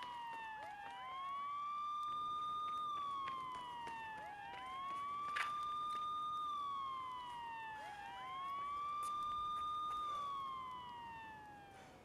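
Wailing siren: the tone sweeps up, holds high and then slides slowly down, three times about three and a half seconds apart, fading away near the end.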